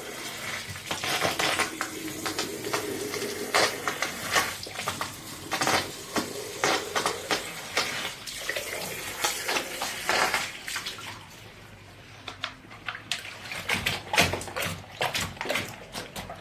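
Water splashing and running while an opened lead-acid UPS battery is rinsed out, with repeated knocks and clatter from its plastic case being handled. It goes quieter for a couple of seconds about two-thirds of the way through.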